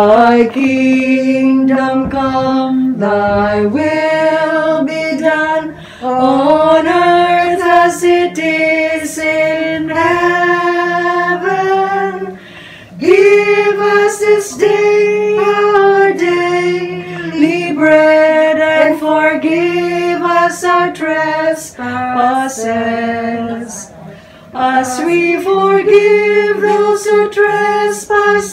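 A small group singing a hymn without accompaniment, women's voices leading, in slow phrases of long held notes with short pauses for breath.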